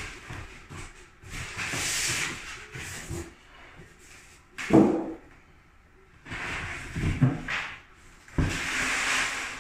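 Cardboard box and plastic packaging being handled and pulled apart: bursts of rustling and scraping, with a loud dull thump about five seconds in.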